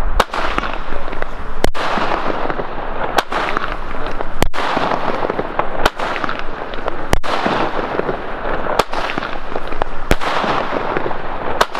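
Alba 'Eidos' mini firework battery firing its shots one after another, about nine sharp reports roughly one and a half seconds apart. Under them runs a constant crackle and banging of many other fireworks going off around the city.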